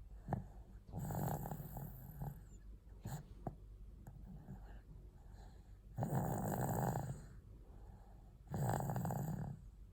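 Loud snoring: three long snores, each about a second, with quieter breaths between them.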